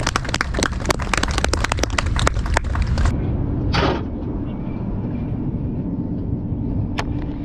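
Crowd applause for about three seconds that cuts off suddenly. A steady low engine hum with a held tone follows, with a short rushing sound a second later and a single click near the end.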